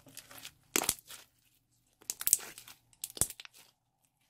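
Clear slime squeezed and kneaded by hand, giving three bursts of crackling with many quick clicks as it is pressed and pulled between the fingers.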